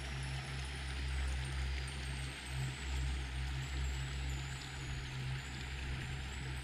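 Shallow river rushing steadily over a stony riffle.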